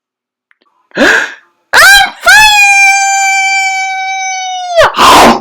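A person's drawn-out, exaggerated sneeze: two sharp breathy gasps, a long high held 'aaah' that drops in pitch as it ends, then a loud noisy 'choo' near the end.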